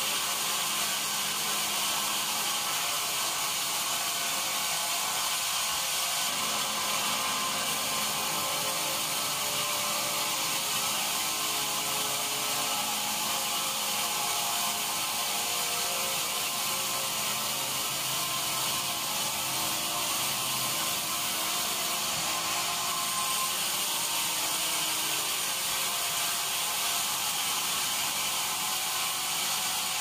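Large band sawmill blade cutting lengthwise through a big mahogany log as the carriage feeds it, making a steady high hiss with fainter shifting tones beneath.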